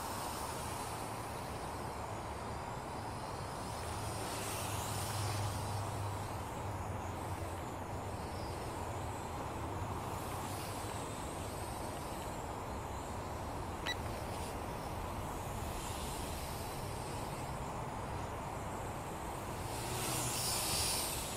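Small toy quadcopter's propellers whirring in flight over a steady low hum and outdoor background noise. The whir swells twice, about four seconds in and again near the end, as the drone passes close. A single sharp click comes in the middle.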